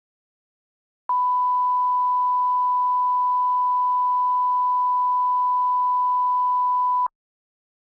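Steady 1 kHz line-up test tone: a single unbroken pure beep at one pitch, lasting about six seconds, starting about a second in and cutting off sharply. It is the reference tone used to set audio levels at the head of an edited programme.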